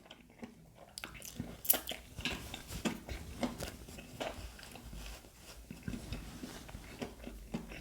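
A person chewing and crunching crispy fried seafood close to the microphone, with irregular bites and crackles starting about a second in.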